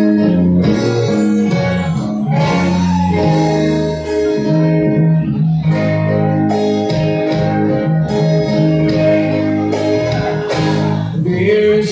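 Live band playing a song through the venue's PA: guitar and keyboard with a singer, loud and continuous.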